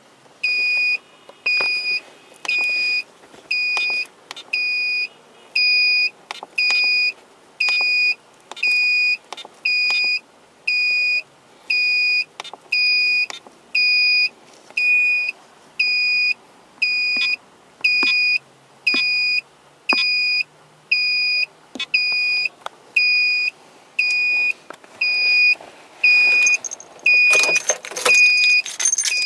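Electronic warning beeper giving a single high tone about once a second, each beep about half a second long, with faint clicks between the beeps. Near the end a hissy rustle rises over the beeping.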